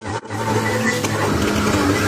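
DH17C3 crawler bulldozer's diesel engine running steadily, after a brief dropout about a quarter second in.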